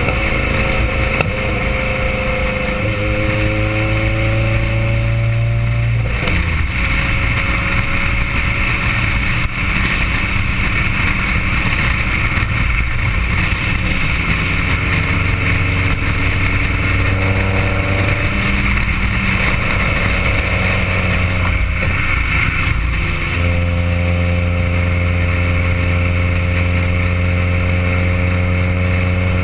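Honda B16A inline-four's exhaust through a 4-1 header, test pipe, resonator and SLP Loudmouth side-exit muffler, heard close to the pipe while driving. The note climbs, breaks off and climbs again several times, then holds steady at a lower pitch near the end, over constant wind and road noise.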